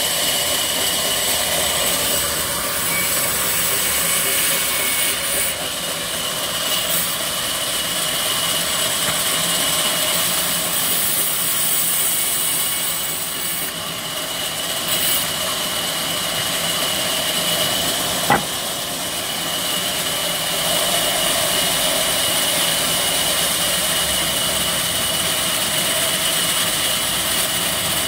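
Sawmill band saw running steadily as it cuts through rain tree wood, with a constant high whine over the machine noise. One sharp knock about two-thirds of the way through.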